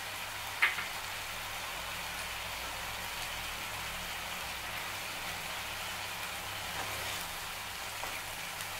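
Tomato sabzi sizzling in a frying pan as a steady hiss, with one sharp click about half a second in and a few faint knocks of a wooden spatula near the end.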